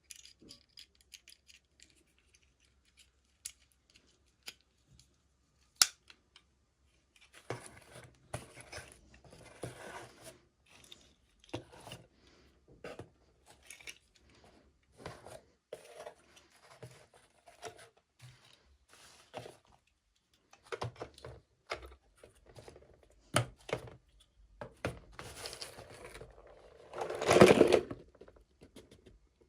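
Toy packaging being opened by hand: a run of small clicks, snips and crinkles from cutting and handling plastic and cardboard, with one louder rustle near the end.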